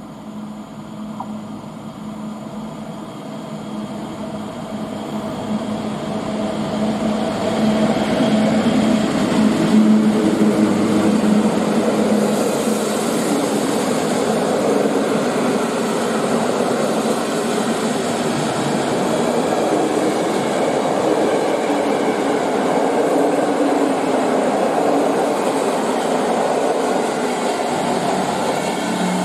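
EP07 electric locomotive hauling a train of passenger coaches through the station. The rumble of the wheels on the rails grows louder over the first ten seconds or so, with a steady low hum that fades about eleven seconds in. The coaches' rolling noise then runs on loud and steady as they pass.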